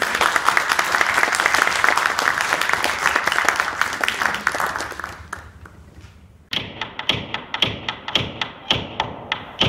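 Audience applause that fades out over about five seconds. About six and a half seconds in it is followed by a quick run of sharp knocks, about three a second, each with a short ringing tone.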